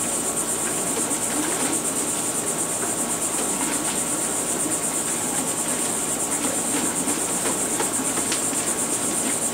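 Air-lift pump running: compressed air churning water and pea gravel up the discharge, with a few faint ticks, under a steady high-pitched hiss with a fast flutter.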